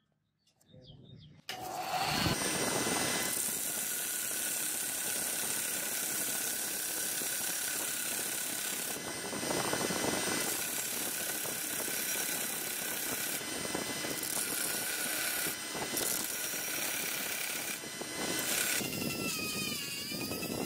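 Belt sander running, with cast brass handle pieces pressed against the belt so the grinding grows harsher in several short passes. Near the end a handheld rotary tool with a small sanding drum takes over on the brass, with a wavering whine.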